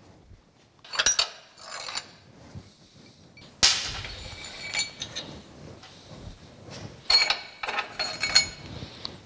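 Bolts being pulled out of a cast-iron Goldens' No. 1 cane mill and handled, with a series of metal clinks and clanks. The loudest is a sharp clank that rings on briefly, about three and a half seconds in.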